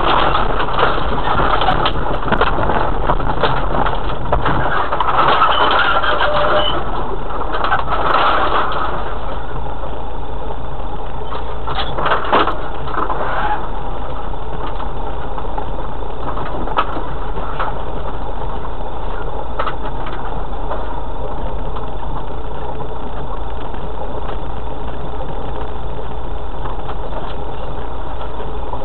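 Off-road 4x4 running slowly in low gear over a rough, stony lane, heard from inside the vehicle: a steady engine drone with tyres on loose stone and knocking and rattling of the body and suspension. There is a busier stretch of rattling over the first several seconds and a cluster of sharp knocks about twelve seconds in.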